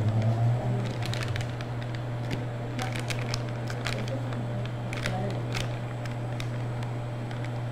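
Light, scattered clicks and taps of a spoon and plastic cups being handled while melted candy coating is stirred and scooped, over a steady low hum.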